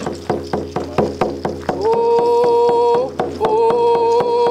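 Painted hide hand drum struck with a beater in a steady beat, about four strokes a second. About two seconds in, a man's voice joins, singing long held notes of a prayer song, with a short break partway.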